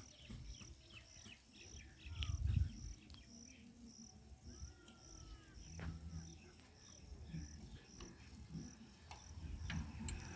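Faint, high cricket chirping repeating evenly about twice a second, with a few light clicks and a low thump about two seconds in.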